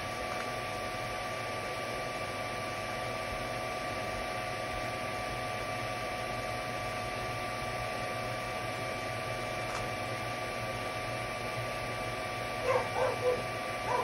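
3D printer running mid-print: a steady fan hum with a few held machine tones. Near the end a dog barks three times in quick succession.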